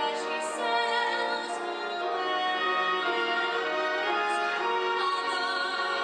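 A woman singing a slow musical-theatre ballad in long, held notes, recorded live from the theatre audience.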